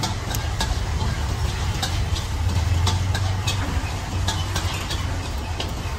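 Charcoal crackling with scattered sharp ticks and pops under fish grilling in wire baskets, over a steady low engine rumble that swells briefly about halfway through.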